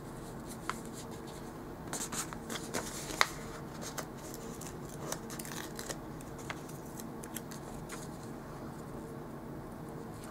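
Paper sticker sheet rustling and crinkling as planner stickers are peeled off and pressed onto the page, with small sharp clicks and snaps. The handling is busiest between about two and four seconds in, with the sharpest snap just after three seconds.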